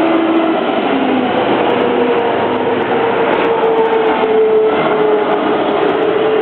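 Steady vehicle running noise, with a droning hum that drifts slowly in pitch.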